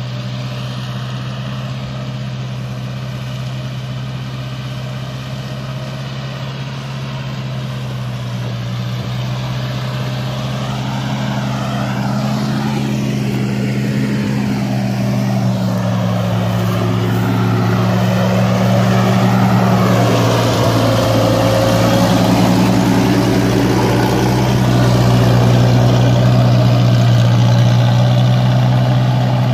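Tractor engine running steadily, growing gradually louder, its pitch dipping and rising a little about halfway through.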